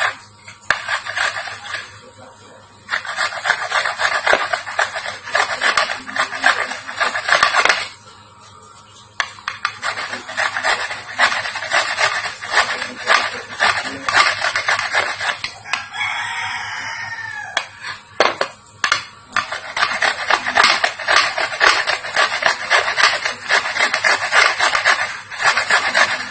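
Fresh turmeric root being rubbed on a hand grater in rapid scraping strokes, in long runs broken by short pauses.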